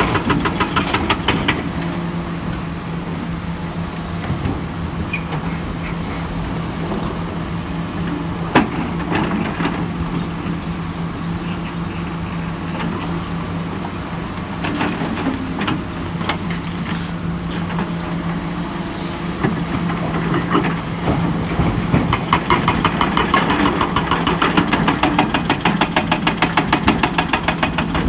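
Komatsu hydraulic excavator's diesel engine running with a steady low hum, growing louder and more pulsing from about twenty seconds in. A single sharp knock comes about eight seconds in.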